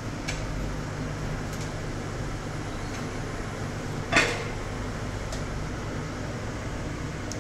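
A steady low hum, with a few light clicks of dishes and containers being handled and one louder knock about four seconds in.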